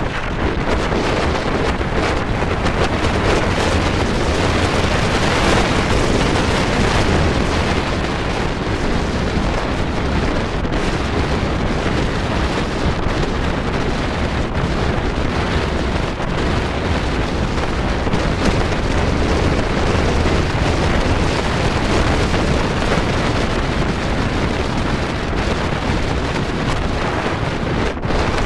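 Steady wind rushing over the microphone, mixed with the road and engine noise of a vehicle driving along at speed.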